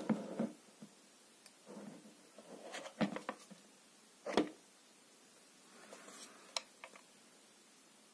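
Scattered plastic clicks, knocks and rustling from the housing and gun holder of a Bosch Universal Aquatak 130 pressure washer being handled while switched off, with one louder knock about four seconds in.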